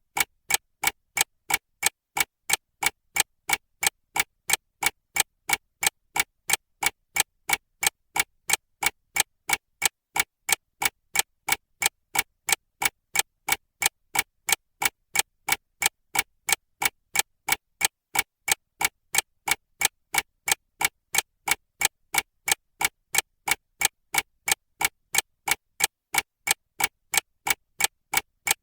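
A clock ticking steadily, with fast, evenly spaced ticks of about three a second.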